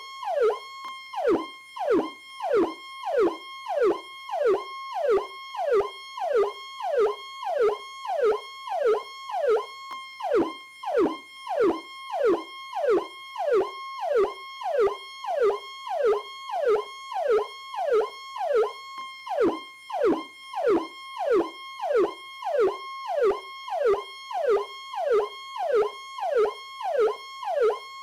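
Electronic police siren of the Powercall type sounding continuously in a fast repeating pattern. Each cycle is a quick falling sweep under a steady high tone, about one and a half cycles a second.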